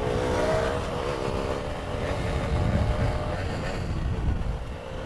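Motorcycle engine running while riding, its note wavering slightly in pitch, under heavy wind rumble on the microphone.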